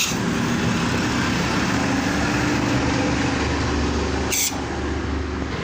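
Steady background rumble and hum, broken by two short, sharp hisses about four seconds apart.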